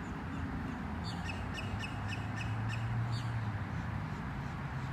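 A bird calling: a quick run of short, sharp calls lasting about two seconds, over a steady low hum.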